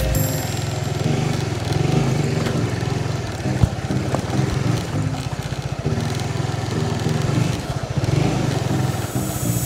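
Honda CBR150R's single-cylinder four-stroke engine running at low speed, the throttle opened and eased off in turns as the bike is ridden through sand. A single sharp knock about three and a half seconds in.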